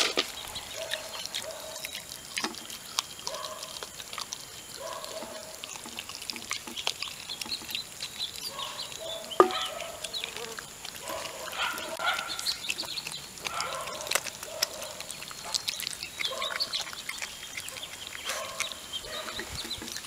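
Icelandic Sheepdog puppies chewing and crunching raw chicken wing pieces, with clicks and knocks of teeth and bone on a stainless steel bowl and a sharp knock about nine seconds in. Short pitched animal sounds come between the crunches.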